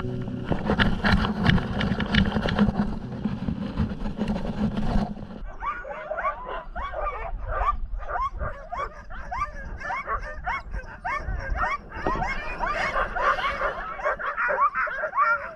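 A loud, rough rushing noise for about the first five seconds, then a team of sled dogs yipping, barking and whining over one another in many short calls that rise and fall in pitch.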